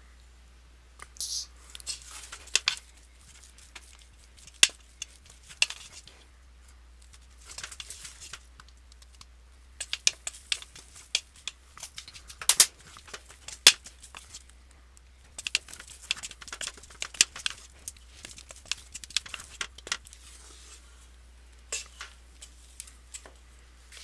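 Plastic slotted spatula scraping and knocking against a metal pot while stirring sticky melted marshmallows. It comes in irregular clusters of sharp scrapes and clicks, with short pauses between strokes.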